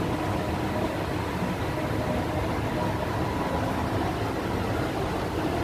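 Steady indoor mall background noise: an even hiss and rumble like ventilation, with a faint steady hum.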